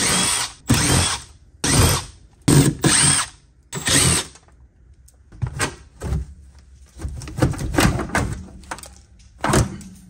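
Power drill running in five short bursts over the first four seconds or so, as on screws in the sheet-metal cabinet of an evaporator coil, followed by softer knocks and clicks of metal parts being handled.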